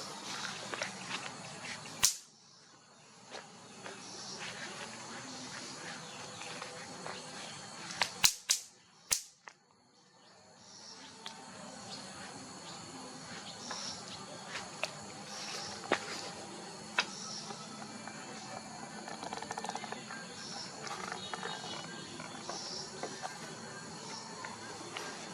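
Steady background hiss with faint high-pitched chirping, broken by a sharp click about two seconds in and a quick cluster of three clicks around eight to nine seconds in, each followed by a brief dip in the background noise.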